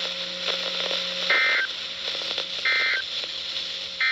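Emergency Alert System end-of-message signal: three short bursts of SAME data warble, each about a third of a second and about 1.3 seconds apart, marking the close of the warning broadcast.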